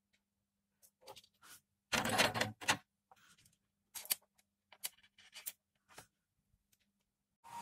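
Earphone cable and thin wires handled on a tabletop. A loud rustle of about a second comes a couple of seconds in, followed by several short clicks and rustles.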